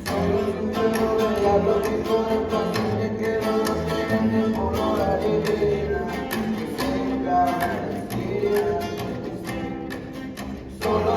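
String ensemble playing an instrumental passage: bowed strings carry the melody over a steady strummed rhythm.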